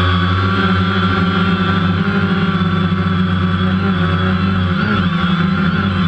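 DJI Phantom quadcopter's electric motors and propellers running with a loud, steady buzz, heard up close from the camera mounted on the drone. The pitch wavers briefly about five seconds in as the drone manoeuvres.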